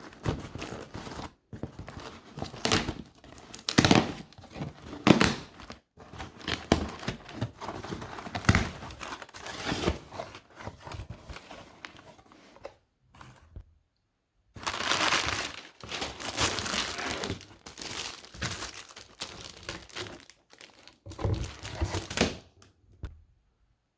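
Packaging being unwrapped by hand: irregular crinkling, rustling and tearing in bursts with short pauses, stopping about a second before the end.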